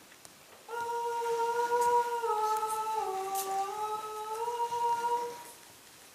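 A voice humming a slow wordless tune of a few long held notes for about five seconds. The tune steps down twice, then climbs back to where it began.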